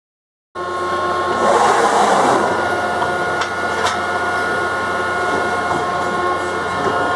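Schwabe USA SR 230 straight-ram hydraulic beam press with urethane belt feed clamping system running, starting abruptly about half a second in. It is a steady machine hum with several held tones, with a louder rushing swell from about one to two and a half seconds in and two sharp clicks near the middle.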